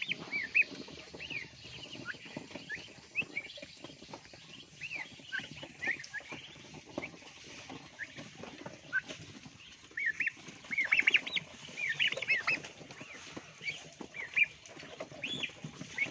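Month-old hybrid turkey poults (Bourbon Red × Black Spanish cross) peeping: many short, high calls that rise and fall, coming in clusters and busiest in the second half, over scattered light clicks and scratches.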